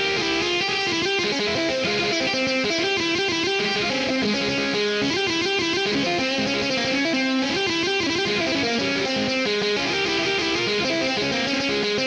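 Distorted electric guitar from an iPad guitar app's Hard Rock preset, through overdrive and flanger effect pedals, playing a fast, continuous run of single notes in a Klezmer scale, with quickly repeated notes in places.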